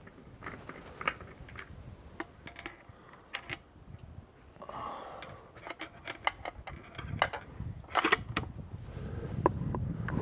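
Scattered light clicks and metallic clinks of gear being handled, a few of them sharper around two-thirds of the way through.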